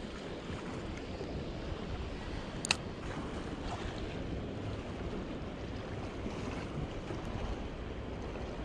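Wind buffeting the microphone over a steady wash of harbour water, with one sharp click a little under three seconds in.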